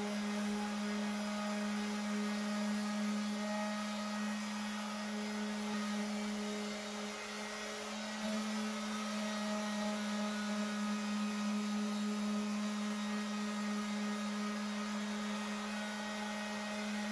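Corded electric orbital sander running steadily against a car door with a 120-grit disc, grinding off the paint around a dent. A steady motor hum with a hiss of the abrasive on the paint.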